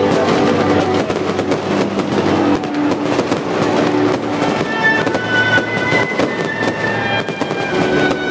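Fireworks bursting and crackling in quick, dense cracks, over music with long held notes.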